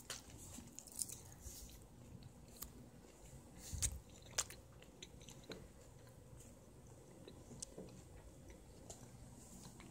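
A cat chewing and biting at scraps of meat: faint, irregular clicks and smacks, with a couple of louder knocks around four seconds in.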